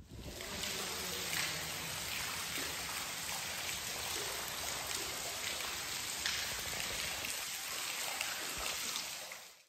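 Water dripping and trickling in a wet railway tunnel: a steady, rain-like hiss with scattered drops. It fades in at the start and stops near the end.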